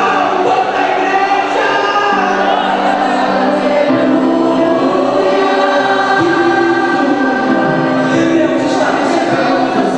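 Choir singing a gospel hymn with instrumental accompaniment.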